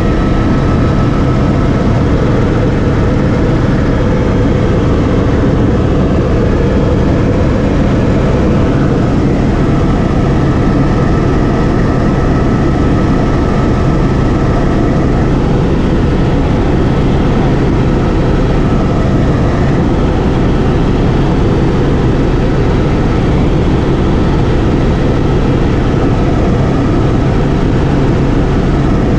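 Helicopter in flight heard from inside the cockpit: the engine and rotor run with a steady low hum and a faint high whine over dense cabin noise.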